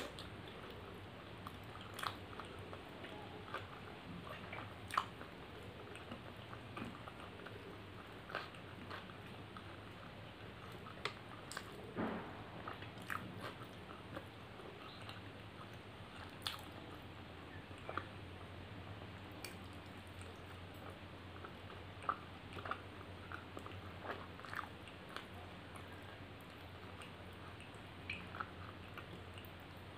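Close-miked chewing, with wet mouth smacks and clicks, of a person eating butter roti dipped in mutton curry gravy, a few sharp clicks each second over a faint steady low hum.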